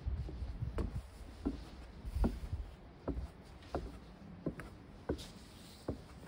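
Footsteps on a wooden tent platform: a steady row of short knocks, a little faster than one a second, with a dull low thud about two seconds in.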